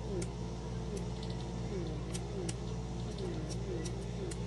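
Small electric pore vacuum cleaner running, its motor tone dipping and rising again every second or so as the rough exfoliating tip is drawn back and forth over the skin. A few faint clicks.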